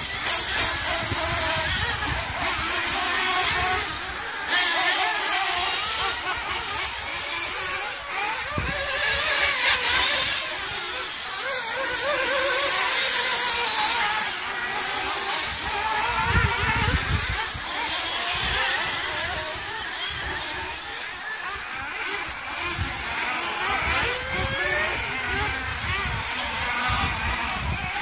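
Radio-controlled model car running on a dirt track, its small motor whining and rising and falling in pitch as it speeds up and slows through the corners.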